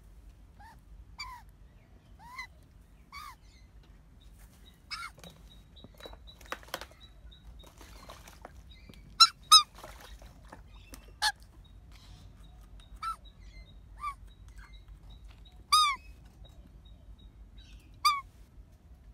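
Juvenile Australian magpie calling: a string of short squawks, each a quick downward-bending note, spaced a second or two apart, with the loudest pair about nine seconds in.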